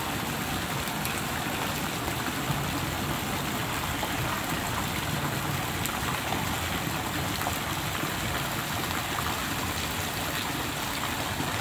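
Steady rushing and lapping of swimming-pool water around a swimmer moving slowly through it.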